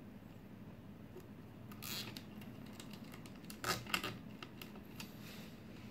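Scratchy rustling and a handful of sharp clicks and scrapes, loudest about four seconds in, as the braided textile sleeve and wires of a 3D printer's extruder cable bundle are handled.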